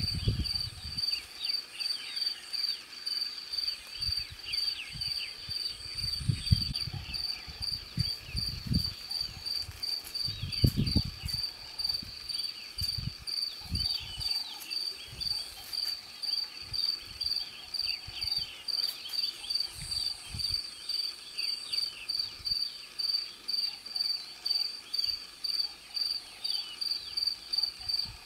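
Cricket chirping in an even, high-pitched rhythm of about two to three chirps a second, over a bed of fainter, irregular chirps. A few low rumbles come through in the first half.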